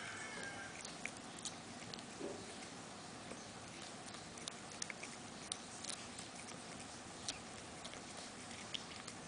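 A cat biting off and chewing blades of cat grass: faint, irregular crisp clicks and crunches a second or so apart.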